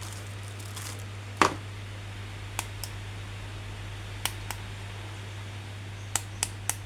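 Sharp, irregular clicks and taps from handling plastic action figures and their packaging, about seven or eight in all, the loudest about a second and a half in and three quick ones near the end, over a steady low hum.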